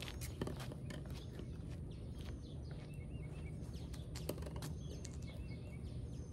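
Outdoor ambience: a steady low wind rumble on the microphone, a few light footstep taps on pavement, and faint bird chirps about three and five seconds in.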